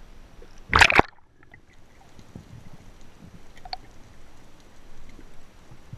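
Water splashing as the camera plunges below the sea surface about a second in, then muffled underwater sound with a few faint clicks.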